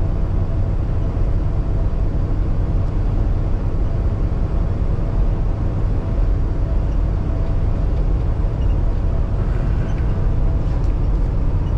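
Steady drone of a 2016 Kenworth T680 semi truck cruising, heard inside the cab: its Paccar MX-13 diesel engine running with road noise, a strong low rumble under a few steady hum tones.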